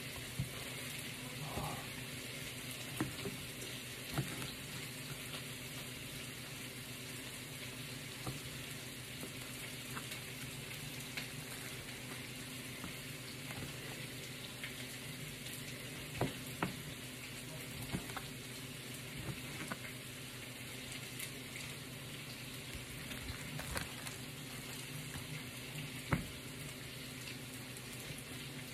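Onions and garlic sizzling steadily in a pot on low heat, with an occasional sharp tap of a chef's knife striking the cutting board as beef is cut into cubes.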